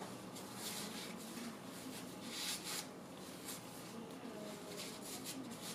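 Faint rustling and rubbing as a OneTigris foldable mesh half-face mask and its elastic straps are unfolded and pulled on over the head.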